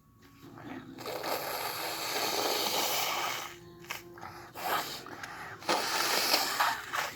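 A person blowing their nose hard into a tissue. One long blow lasts about two and a half seconds, a short snort follows, then a second blow of a little over a second near the end.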